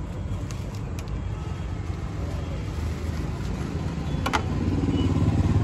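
Steady hum of road traffic, with a vehicle engine growing louder and throbbing near the end as it comes close. A few light clicks and a short scrape come from a knife cutting through a toasted sandwich.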